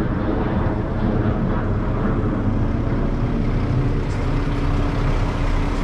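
Semi-truck tractor's diesel engine idling steadily.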